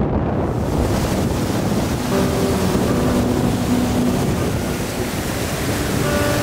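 Rushing water of a river rapid: a loud, steady hiss, coming in about half a second in after low wind buffeting the microphone. Faint guitar music begins to come in about two seconds in.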